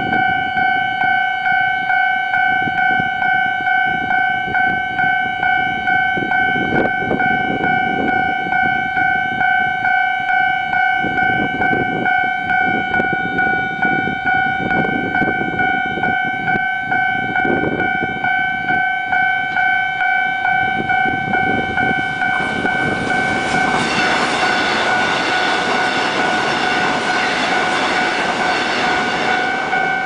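Taiwan Railway level-crossing warning bell sounding its unusual alarm: a steady electronic tone with overtones, pulsing evenly and continuously. EMU500 electric commuter trains rumble by, and about three-quarters of the way in a train passes close with loud, rushing wheel-on-rail noise.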